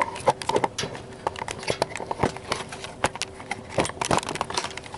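Irregular clicks, taps and rustles from a handheld camera being handled and moved close to its microphone, over a faint steady hum.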